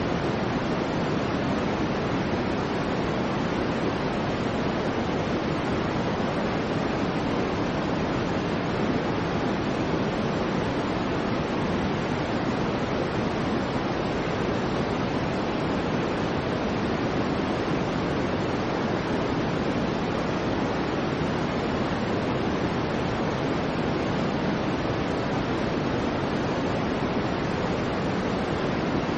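Steady soft white noise for a baby's sleep: an even, unchanging hiss weighted toward the low end, like a gentle rush.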